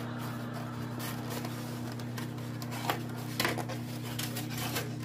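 Microwave oven running with a steady hum as butter melts inside. Over it, a clear plastic egg carton is pried open by hand, with crackles and a few sharp clicks about three seconds in.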